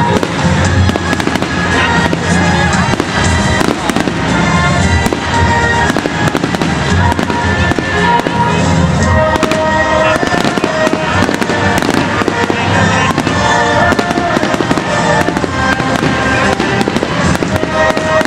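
New Year's fireworks bursting in rapid, continuous succession, many sharp bangs and crackles, over a loud musical soundtrack.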